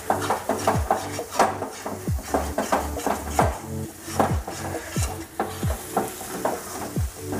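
Steel spatula scraping and stirring a thick spice-and-nut paste around a steel kadhai, about two or three strokes a second, over the sizzle of the paste frying in ghee. The masala is being roasted on low flame until the ghee starts to separate.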